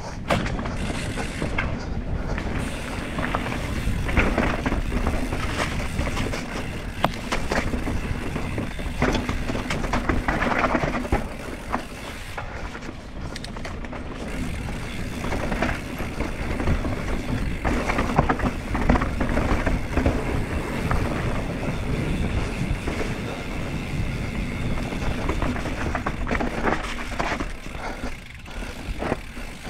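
Mountain bike descending a dirt forest trail: steady tyre noise over dirt and roots, with frequent knocks and rattles from the bike as it goes over bumps.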